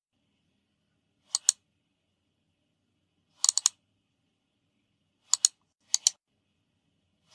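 Slow, uneven footsteps, each step a sharp double click with near silence between steps; this is a spooky footsteps sound effect.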